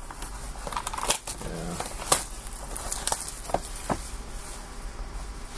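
Hands handling trading cards: a scatter of sharp clicks and light rustling.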